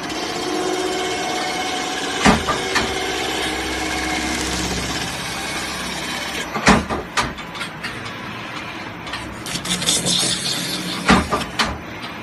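CNC metal spinning lathe running, a steady machine hum with a whining tone, with sharp knocks about two, seven and eleven seconds in.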